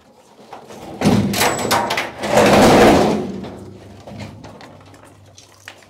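A metal incubator cabinet being tipped onto its front and shifted: sharp knocks about a second in, then a long scrape that swells and fades away, with another knock at the very end.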